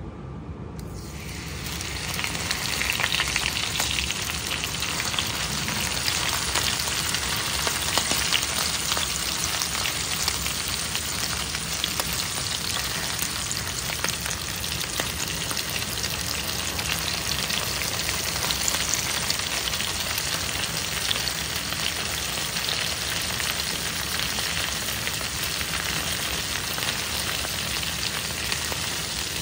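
Chicken skewers frying in hot oil in a pan: a sizzle that starts about a second in and quickly grows, then carries on as a steady dense crackling.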